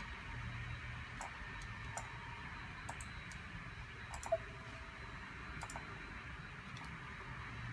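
Scattered light clicks and ticks over a steady low hum, with one sharper click about four seconds in.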